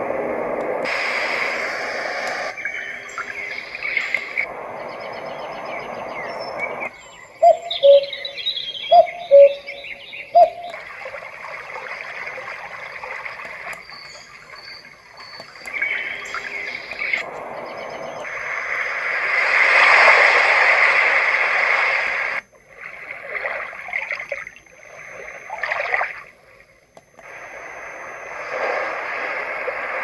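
Roffie N600 sound machine playing its built-in nature sounds through its small speaker, switching to a new track every few seconds. Bird chirps, a few of them loud and sharp about a third of the way in, alternate with stretches of rushing, water-like hiss.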